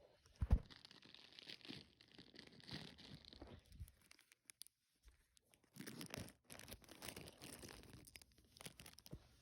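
Packaging being torn open and crinkled by hand, in two bouts of rustling with a short pause between, with a knock about half a second in.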